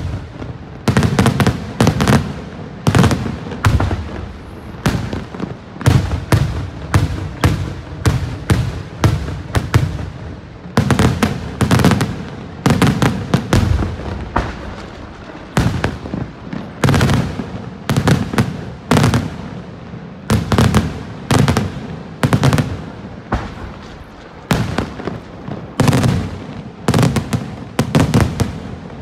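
Daytime fireworks: aerial shells bursting in a rapid, unbroken barrage, sharp loud bangs coming several a second, many with a deep boom.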